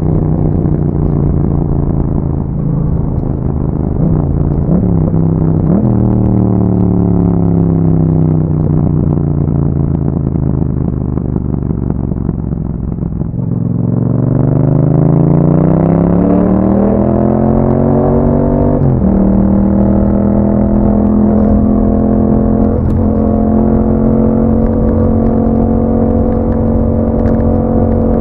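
2021 Yamaha MT-07's 689 cc parallel-twin engine through an Akrapovič exhaust while riding. The revs fall slowly for several seconds as the bike slows, then climb steeply under acceleration, drop sharply at a gear change about two-thirds in, and settle into a steady cruise.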